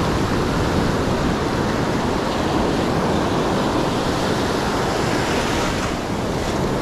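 Ocean surf breaking and washing up the beach, a steady rush of white water.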